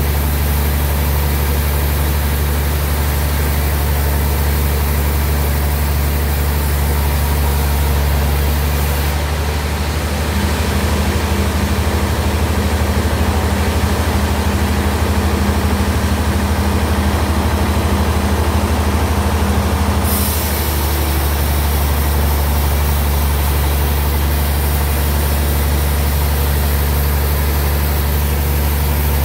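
Sawmill bandsaw machinery running with a steady heavy, low drone. From about nine to twenty seconds in, a higher hum and a bright hiss join it, then drop away.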